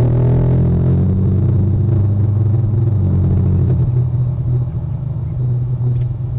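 A steady, loud, low engine-like drone of a few held tones; its upper tone fades about four seconds in.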